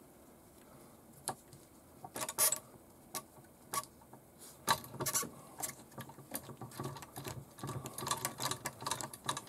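Small metal clicks and rattles of hand tools and screw hardware as a shock absorber is screwed onto the axle mount of an RC crawler kit, the nut held in pliers. Sparse single clicks at first, then near-continuous clicking from about halfway through.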